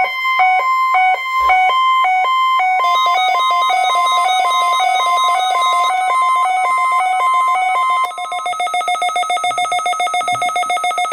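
Weather radio receiver's alert alarm going off for a NOAA Weather Radio test. It beeps in a two-tone pattern that alternates between a higher and a lower pitch, and about three seconds in it switches to rapid, even pulsing. The higher tone drops out about eight seconds in, leaving the lower tone pulsing until it cuts off.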